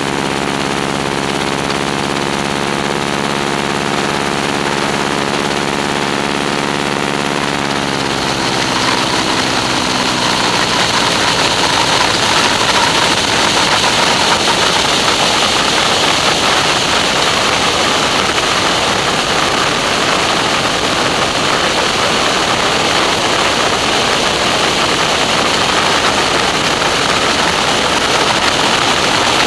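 Stearman biplane's radial engine and propeller droning steadily in flight. About eight seconds in the engine note rises, and a loud rush of wind over the microphone swells and covers it.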